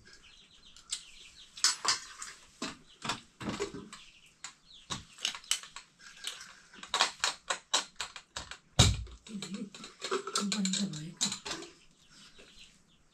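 Eating from stainless steel plates: irregular light clicks and clinks of hands and a spoon against the metal, with one louder knock about nine seconds in.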